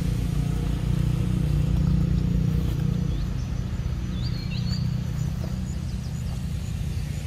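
Outdoor ambience: a steady low rumble, with a few short, high bird chirps about halfway through.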